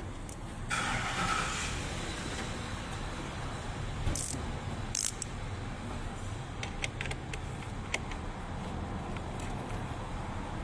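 A short hiss about a second in, then a few sharp light clicks of handling over a steady low hum.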